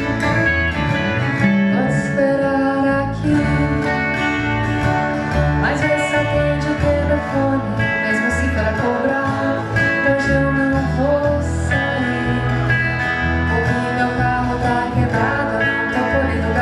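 Live band playing a pop song with acoustic guitar to the fore over bass.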